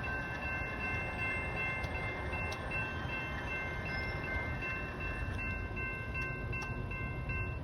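Train horn sounding one long blast, several steady chime notes held together, over the low rumble of the passing train.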